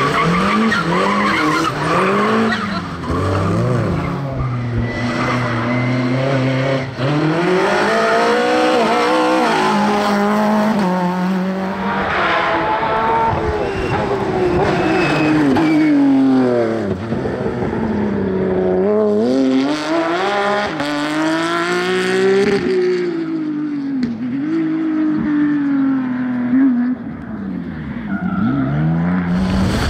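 Rally cars, among them a Peugeot 207 and a Porsche 911 GT3, passing one after another on a tarmac stage, engines revving hard, rising in pitch and dropping again over and over through gear changes and braking.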